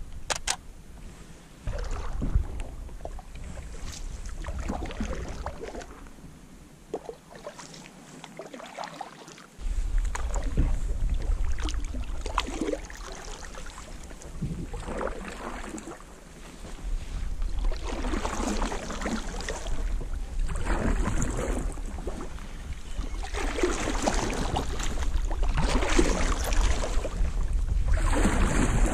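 Canoe paddle strokes: the blade swishing and pulling through calm water, a washing stroke about every two to three seconds in the second half. A low rumble runs underneath, and there are a few sharp knocks near the start.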